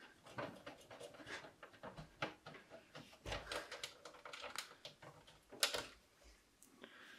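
Faint, scattered clicks and scrapes of hands handling parts inside a steel PC case, with one sharper click a little past halfway.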